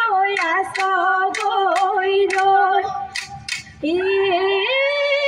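Assamese Bihu song: a female voice singing long, wavering notes over sharp percussion strikes. Near the end the strikes stop and the voice starts a new, higher phrase.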